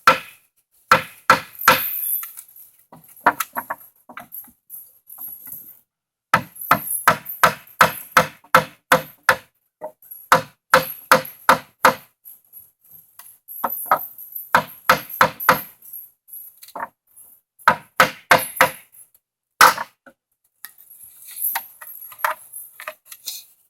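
Rubber mallet striking wooden pallet boards to knock them loose from their stringers, in quick runs of several blows, about three a second, with short pauses between. The single loudest blow comes near the end.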